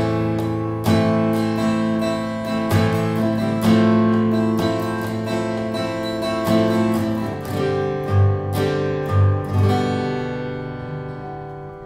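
Seagull Entourage Rustic dreadnought acoustic guitar, with a solid cedar top and wild cherry back and sides, played in a series of strummed and picked chords. A few bass notes stand out in the second half, and the last chord is left to ring out and fade near the end.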